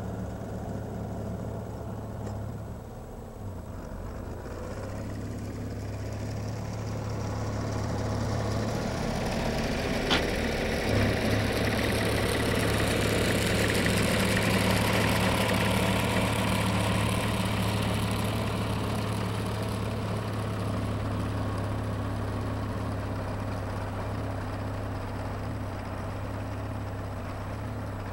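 Vintage 1959 Fordson Major tractor engine running steadily, growing louder from about eight seconds in and easing off again after about twenty seconds, with one sharp click about ten seconds in.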